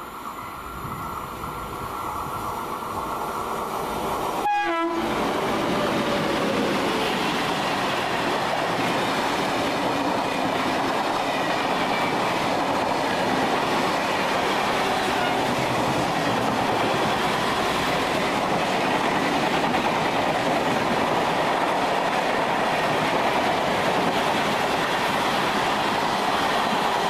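Express passenger train hauled by a WAP7 electric locomotive running through at speed, growing louder over the first few seconds. A brief horn note sounds about four and a half seconds in, then the coaches' wheels rumble and clack steadily over the rails.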